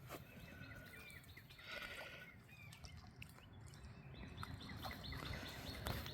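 Small birds chirping faintly, short quick chirps repeating, over a low steady outdoor rumble.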